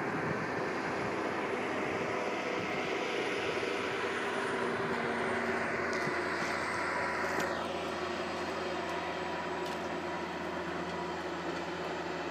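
Steady engine drone from the Mount Washington Cog Railway locomotive climbing toward the summit, mixed with wind noise. The higher hiss drops away abruptly about seven and a half seconds in.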